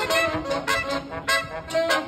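Live brass band playing an upbeat tune: trumpets and saxophones over a drum kit, in short, evenly accented notes.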